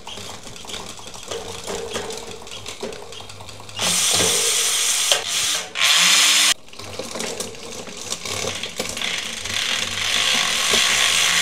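Bicycle drivetrain on a stand as the SRAM GX Eagle Transmission wireless rear derailleur shifts the chain across the cassette: a steady mechanical whirring of chain and cogs with small clicks. A louder rushing stretch starts about four seconds in and cuts off abruptly a couple of seconds later, and the sound grows louder again near the end.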